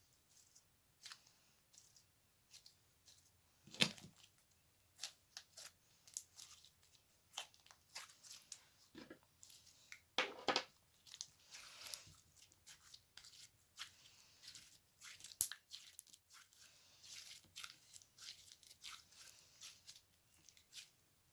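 Slime being handled, making irregular soft crackles and sticky clicks, with a sharper pop about four seconds in and a thicker crackle around ten seconds.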